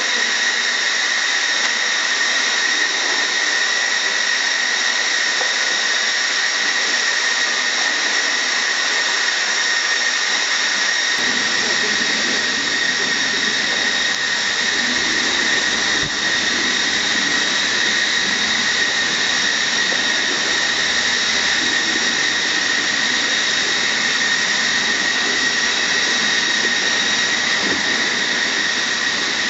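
Steady, high-pitched whine of machinery. It is loud enough to mask a hippopotamus's snorting breaths and chewing as it eats hay and carrots, which lie faint beneath it. A low rumble joins about eleven seconds in.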